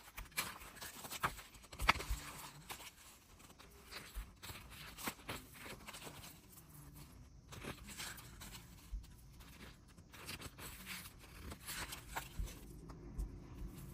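Glossy photobook pages being turned and handled, the paper rustling and swishing, with irregular light clicks and taps of long fingernails on the pages.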